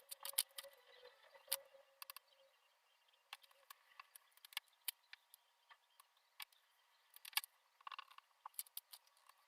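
Scattered light clicks and taps at irregular intervals, with a few louder ones about a second and a half in and again around seven and a half seconds in.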